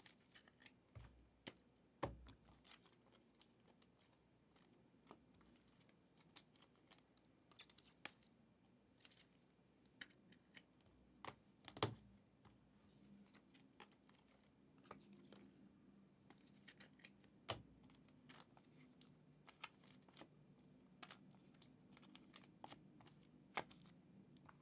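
Football trading cards being handled and sorted, faint: scattered light clicks and taps with soft rustling of card stock and plastic, with a few sharper snaps.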